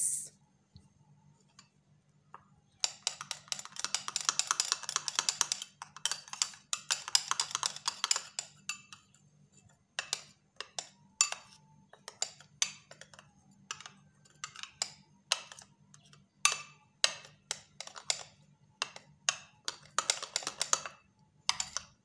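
Metal spoon stirring a thick coffee paste in a cut-glass bowl: rapid clicking and scraping of spoon on glass. A few seconds in comes a dense run of clicks, then separate strokes about one or two a second, over a faint steady hum.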